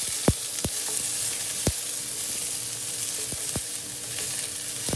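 Green peppers sizzling as they sauté in oil in a frying pan, with a utensil knocking against the pan about half a dozen times.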